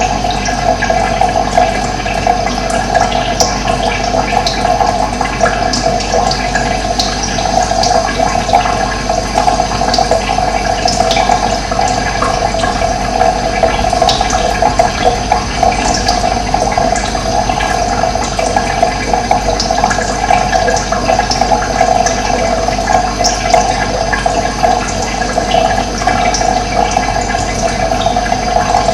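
Running water, a steady continuous rush and gurgle.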